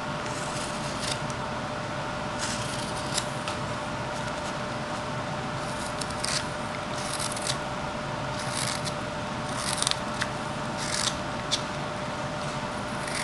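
Carving knife slicing shavings off a small wooden horse figure, in about ten short scraping cuts at irregular intervals, over a steady hum.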